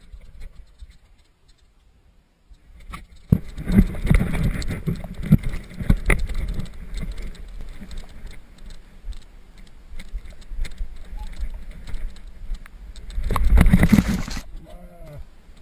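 Scuffling, rubbing and repeated knocks on a helmet camera as a woolly ram butts and shoves against a dirt-bike rider and his motorcycle. It starts quiet, turns loud about three seconds in, and has its loudest surge near the end as the animal rams the bike.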